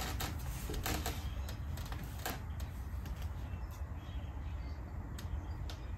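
Scattered light clicks, taps and rubbing as wooden shims are pushed in under a window frame at its sill, over a low steady rumble.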